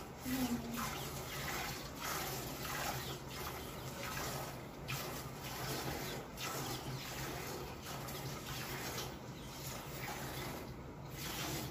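Water buffalo being milked by hand: repeated squirts of milk hissing into a steel bucket. A low steady hum runs underneath.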